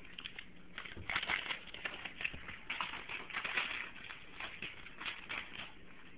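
Paper crinkling and rustling as a pug puppy chews and tugs at homework sheets: a quick, irregular run of crackles, busiest in the middle.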